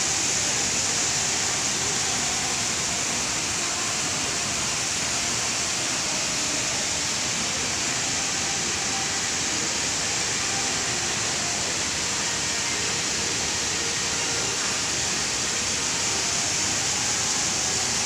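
Artificial rockery waterfall, water falling into a pond as a steady rushing hiss.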